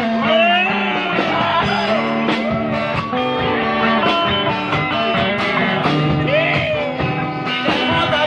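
Live band playing an instrumental passage after the sung verse: a lead melody with sliding, bending notes over bass and a steady drum beat.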